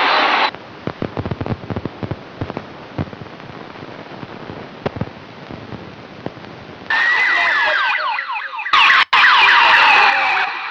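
Scattered short knocks and clicks over low street noise, then from about seven seconds in a loud emergency-vehicle siren with sweeping pitch and a long falling tone.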